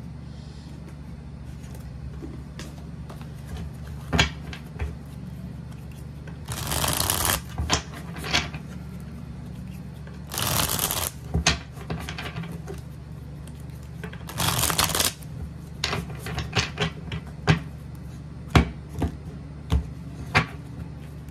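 A deck of tarot cards being shuffled by hand. Three longer shuffling runs of about a second each come roughly 7, 11 and 15 seconds in, with short taps and clicks of the cards being handled and squared in between.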